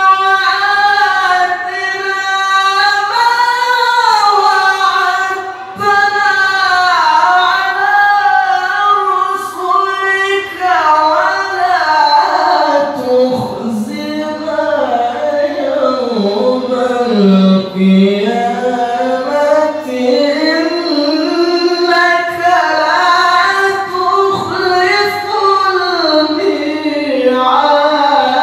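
A male qari reciting the Quran in the melodic tilawah style, with long ornamented phrases in a high, held voice. There is a brief breath pause about six seconds in, and past the middle the melody sinks low before climbing again.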